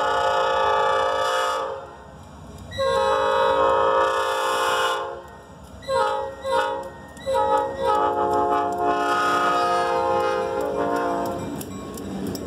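Diesel freight locomotive's multi-chime air horn blowing a crossing-style pattern: a long blast ending about two seconds in, another long blast, two short toots around six seconds, then a final long blast that stops near eleven and a half seconds. After the horn the locomotives and freight cars rumble past close by.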